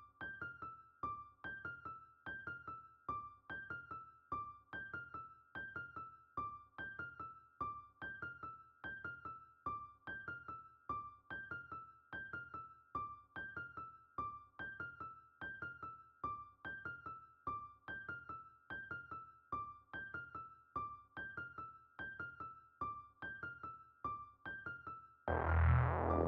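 A looping electric-piano melody of short, evenly spaced notes in a repeating pattern. About a second before the end, a deep bass and fuller beat come in over it.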